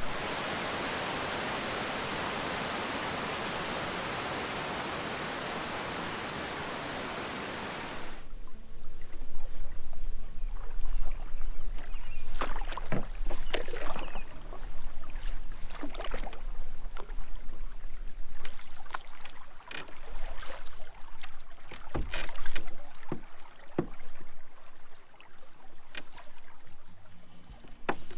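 A steady rushing noise cuts off abruptly about eight seconds in. It gives way to a canoe being paddled: paddles dip and splash in irregular strokes, with water dripping and an occasional knock.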